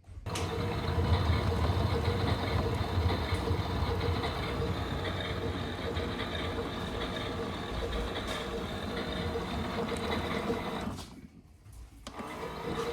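Miele Novotronic W377 washing machine running on its rinse programme: the drum motor hums and the drum turns for about eleven seconds, stops for about a second, then starts again. This is typical of the drum tumbling one way, pausing, and reversing.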